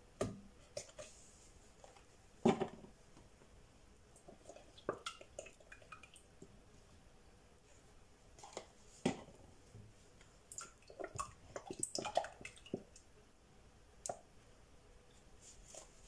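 Cream pouring from cartons into a stainless steel pot, with faint splashing and dripping. Scattered sharp knocks and clicks come from the cartons and pot being handled, the loudest about two and a half seconds in and again about nine seconds in.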